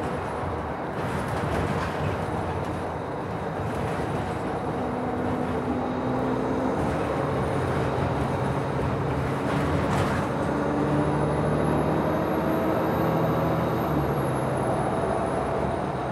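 Nova Bus LFS city bus heard from inside the passenger cabin: the engine and drivetrain hum over steady road rumble, with the engine note climbing in steps from about five seconds in. A single sharp click comes about ten seconds in.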